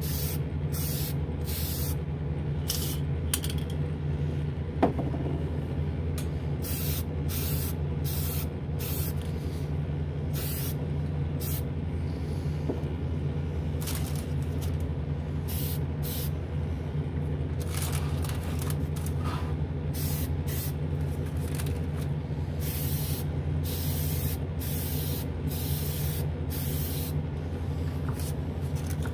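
Testors Extreme Lacquer aerosol spray can hissing in dozens of short bursts, a fraction of a second to over a second each, as the final coat of gold metallic lacquer goes onto a model car body. A steady low hum runs underneath.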